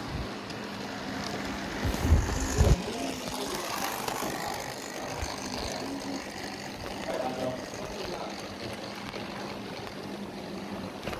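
Model train running along the layout's track past the camera, a steady running hum, with a few low thumps about two seconds in.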